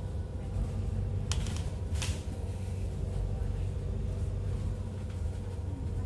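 Steady low rumble inside a moving passenger vehicle, with two short sharp rattles about a second and two seconds in.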